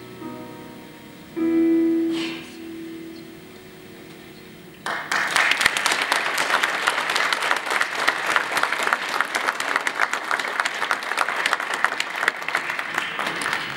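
The last chords of the song's piano accompaniment ring out and fade, then audience applause breaks out about five seconds in and carries on for several seconds before tailing off near the end.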